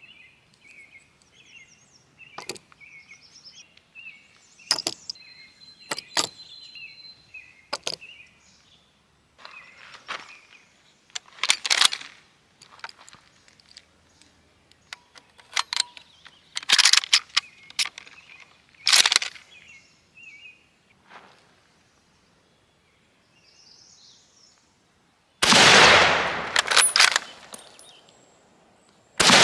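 Birds chirping, with scattered sharp clicks and knocks, then near the end a loud shot from an M1903A3 Springfield .30-06 rifle with a long ringing tail, and a second shot right at the end.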